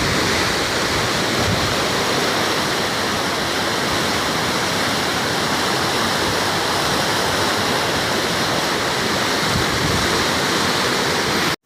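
Loud, steady rush of Chenab river floodwater, a dense unbroken roar of flowing water that cuts off abruptly at the end.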